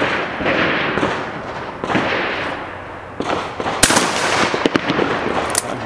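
A Browning 12-gauge shotgun fires a single shot about four seconds in: a sharp crack followed by a short ringing echo. Smaller cracks follow over a steady rushing background.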